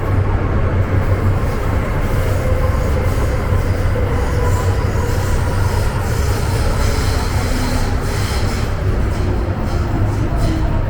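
Hong Kong MTR M-train, a Metro-Cammell electric multiple unit, running between stations, heard from inside the car. A steady loud rumble of wheels on rail over a low hum, with thin squealing tones from the wheels.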